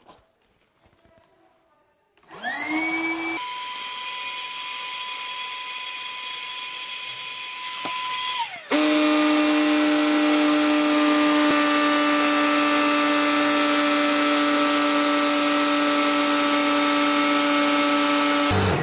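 Marlin electric boat pump inflating a PVC inflatable boat's compartment. Its motor spins up with a rising whine about two seconds in and runs steadily. About nine seconds in it changes to a louder, lower hum, then cuts off abruptly near the end with the boat inflated.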